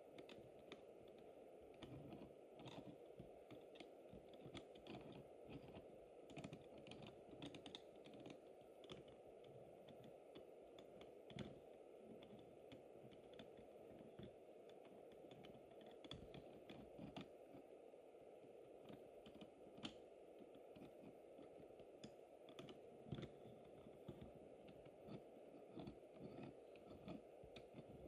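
Faint, irregular light clicking and ticking over a steady low hum as a working OO-scale model crane slews and lowers its load.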